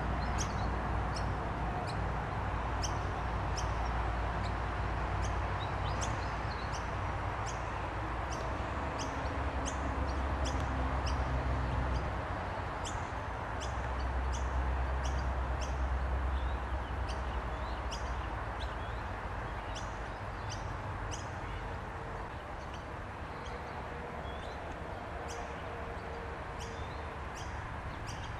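Outdoor background sound: short high chirps repeating about once or twice a second, over a steady hiss and a low rumble that swells twice.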